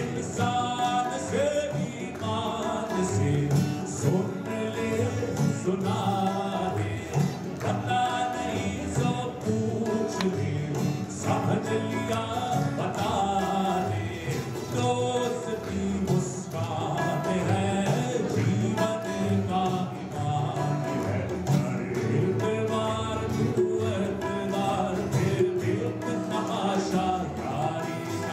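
A male voice singing a song with strummed acoustic guitar and tabla accompaniment, played live through a stage sound system.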